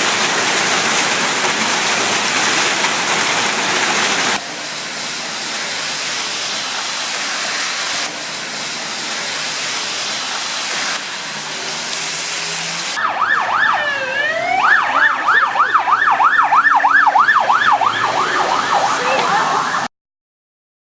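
Hail and rain pelting down in a heavy, even hiss. About two-thirds of the way in, an emergency vehicle's siren joins it: one slow wail, then a fast yelp of about three sweeps a second. The sound cuts off abruptly near the end.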